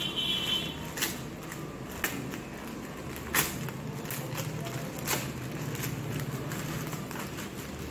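Plastic packaging crinkling and rustling as clothing is handled and pulled out of its wrapper, with sharp crackles about once a second. A low steady hum runs underneath through the middle.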